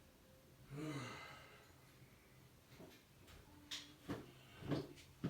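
A person's short voiced sigh about a second in, falling in pitch. Then several light clicks and knocks, as of parts being handled.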